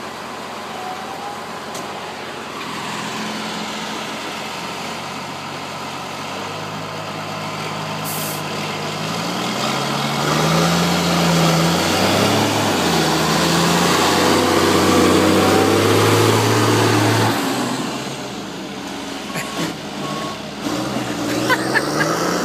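Loaded Peterbilt log truck's diesel engine pulling away under load, its pitch climbing and dropping back several times as it shifts up through the gears, growing louder and then easing off as it moves away. A few sharp clicks come near the end.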